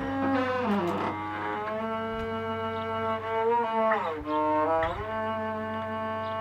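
Creaking door hinge drawn out into long, sustained squealing tones with a bowed-string quality. The pitch dips and slides back up twice, about a second in and again after four seconds.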